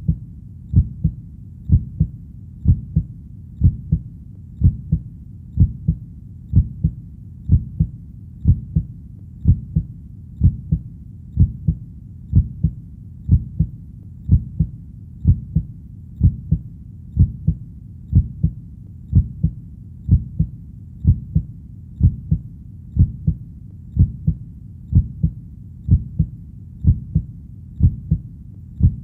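Human heartbeat, a steady lub-dub of paired low thuds at about one beat a second.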